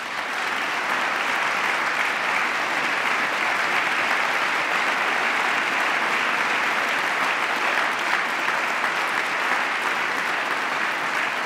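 Large crowd applauding steadily, a long ovation of many hands clapping together.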